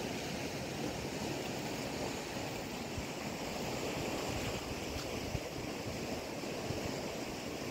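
Steady rushing of muddy floodwater flowing past a washed-out road edge.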